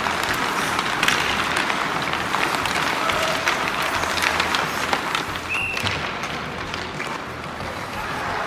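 Ice hockey practice on the rink: skate blades scraping and carving the ice in a steady hiss, with frequent sharp clacks of sticks hitting pucks and ice.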